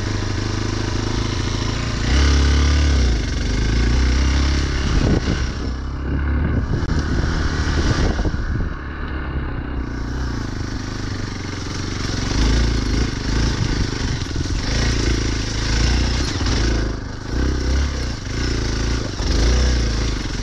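Motorcycle engine climbing a wet off-road trail, its revs and load rising and easing unevenly.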